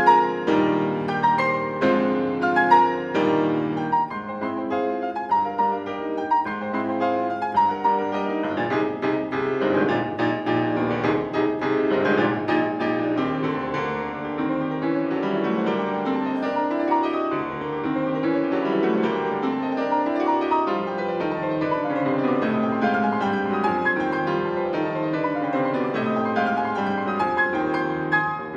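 Steinway grand piano played solo in a classical piece: dense, fast passages of struck notes, with sweeping runs rising and falling through the second half.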